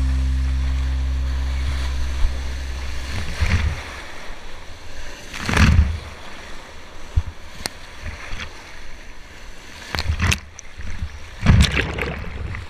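Background music fading out, followed by irregular gusts of wind buffeting the microphone.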